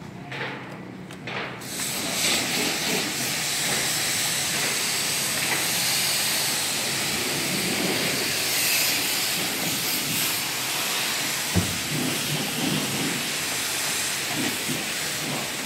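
Steady hiss of a pressure-washer jet spraying water, starting about two seconds in, with one sharp click past the middle.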